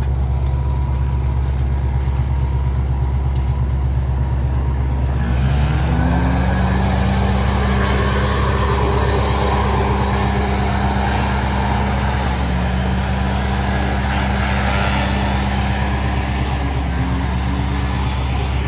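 Wood chipper's engine running steadily with a low hum. About five seconds in, a second pitched sound rises and then holds steady, dipping briefly twice.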